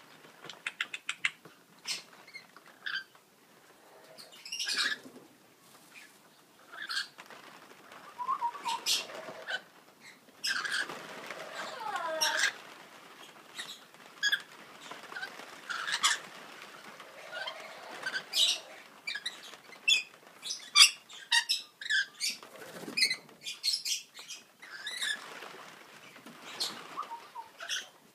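Rainbow lorikeets calling: a run of short, shrill screeches and chattering calls at irregular intervals, some sliding up or down in pitch.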